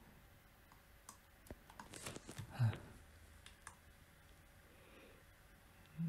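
A few faint, scattered clicks of a computer mouse.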